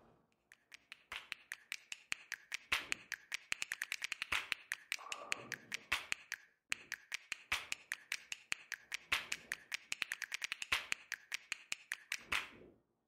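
A rapid, irregular run of sharp taps or clicks, several a second, with short pauses.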